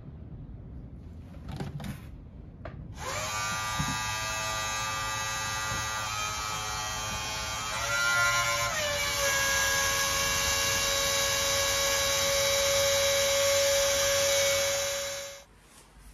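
Air bleeding off through a valve on a tractor's rear tire, releasing the pressure built up as liquid ballast is pumped in: a loud whistling hiss that starts about three seconds in, drops slightly in pitch about eight seconds in and fades away near the end.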